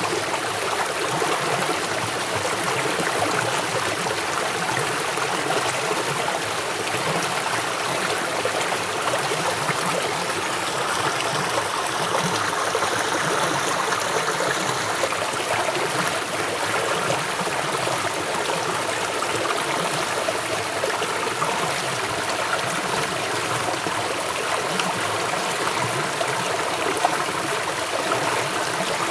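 River water flowing fast, a steady rushing and splashing.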